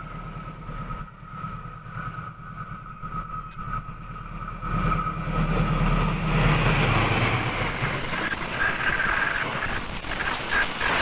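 Train hauled by a CC 206 diesel-electric locomotive drawing near: a steady low rumble, then much louder engine and wheel-on-rail noise from about halfway on.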